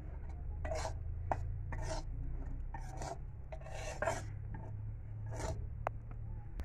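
A spatula scraping and stirring dry semolina against a steel kadhai, with repeated gritty scraping strokes about one or two a second, as the semolina is roasted in ghee until brown.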